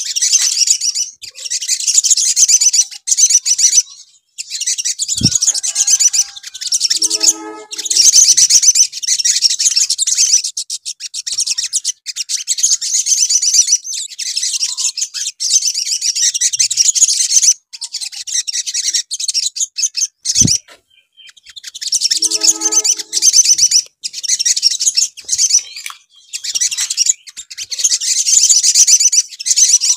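Olive-backed sunbirds singing: rapid, high twittering chirps in bursts with short gaps. A low thump comes twice, about fifteen seconds apart, each followed a couple of seconds later by a short lower call.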